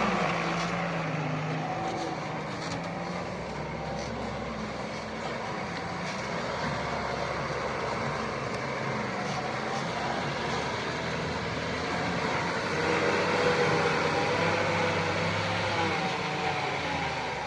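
Heavy diesel construction-vehicle engine running steadily, growing louder for a moment about thirteen seconds in.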